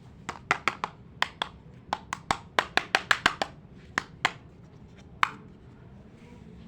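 Small hard plastic toy pieces clicking and tapping together, about eighteen sharp clicks in quick irregular succession that thin out, the last a little after five seconds in.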